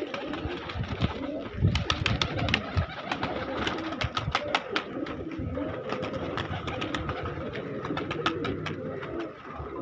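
A flock of domestic pigeons cooing, many overlapping calls, with a run of sharp clicks and taps from about two to five seconds in.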